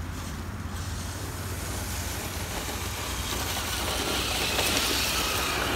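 Traxxas Blazer RC truck driving across grass toward the microphone, its electric motor and tyres running and growing louder toward the end. A steady low rumble runs underneath.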